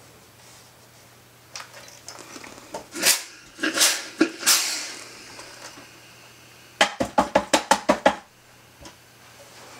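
Steam iron giving three short bursts of steam onto a folded denim hem, then a wooden tailor's clapper knocking down on the hem about eight times in quick succession.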